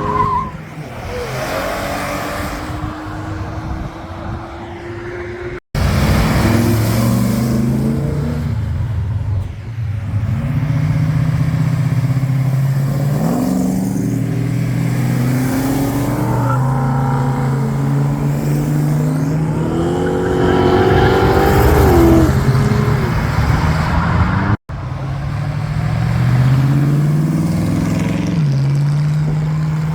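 Car engines running with a steady low note and revved up and back down a few times, in several clips cut together with abrupt breaks.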